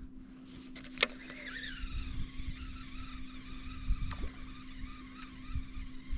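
Baitcasting reel being cast: a sharp click about a second in as the cast is let go, then the spool's whirring whine falling in pitch as line pays out, over a steady low hum.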